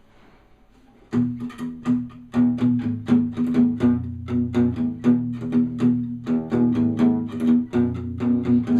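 Guitar played in a steady rhythm of plucked chords over a ringing low note, starting suddenly about a second in after a faint rustle: the instrumental lead-in to a song.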